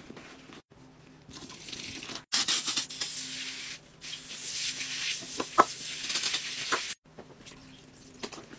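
Gritty hissing and scraping from scrubbing and pouring cleaning powder in a toilet bowl, heard in short pieces that start and stop abruptly at cuts. The loudest stretch is a bright hiss a little after two seconds in, followed by scratchy scrubbing with a few sharp clicks.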